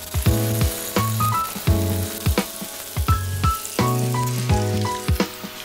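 Potato slices deep-frying in hot oil in a pan, sizzling steadily, with background music with a steady beat laid over it.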